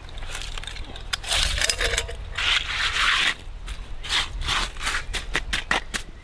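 Scraping and digging in gravelly soil with a small hand tool, with a long scrape about one to three seconds in, then a series of short clicks and knocks as stones and tool strike each other.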